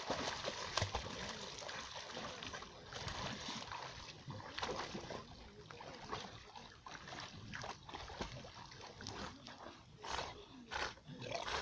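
Two American Staffordshire terriers swimming and paddling, water splashing and sloshing around them in irregular bursts as they tug at a floating log.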